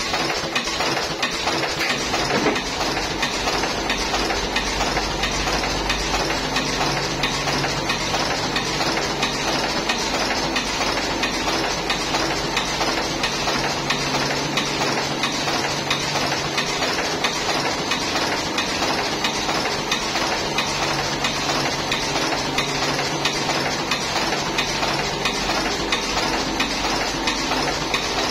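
Buffalo V5 S automatic cigarette filling machine running: a steady, fast mechanical clatter over a low hum that fades in and out.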